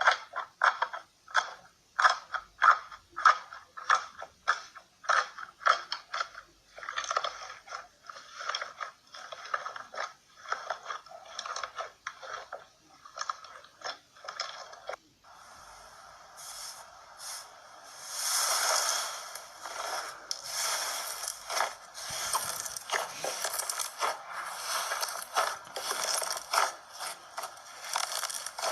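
Slime being pressed and squeezed by hand, with short crackly squishes about twice a second. About halfway through it turns into a denser, continuous crackling scrape.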